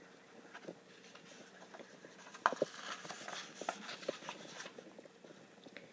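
Handling of a paper picture book: light taps and clicks as it is moved, a sharp click about two and a half seconds in, then a couple of seconds of paper rustling and rubbing as pages are turned.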